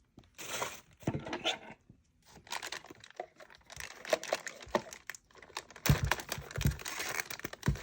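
Plastic packaging crinkling and rustling in stops and starts as a keyboard is handled in its wrapping, with a couple of soft thumps about six seconds in.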